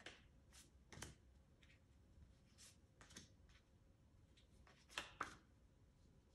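Very quiet, with a few faint, short sounds of tarot cards being handled: cards slid off the deck and laid on a cloth. The clearest is a pair of soft card snaps about five seconds in.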